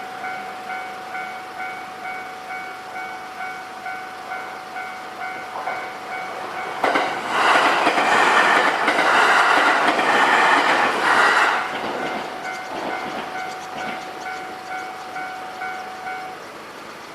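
Japanese level-crossing warning bell ringing in a steady repeating beat, about two strokes a second. Partway through, a train passes over the crossing for about five seconds, loud, with wheels clacking over the rail joints. The bell stops shortly before the end.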